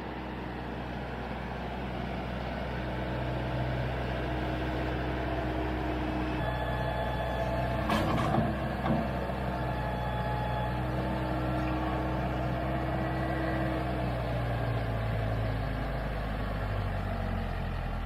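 Branson tractor's diesel engine running steadily while its front loader bucket pushes dirt, the engine note shifting slightly as it works. A few sharp knocks about eight seconds in.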